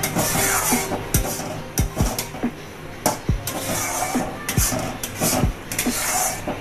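Flat steel spatula scraping and knocking against a metal kadai while stirring thick palmyra palm fruit pulp: repeated rasping strokes with sharp clicks of metal on metal.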